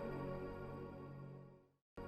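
Background music, sustained tones fading out to silence near the end as the track finishes.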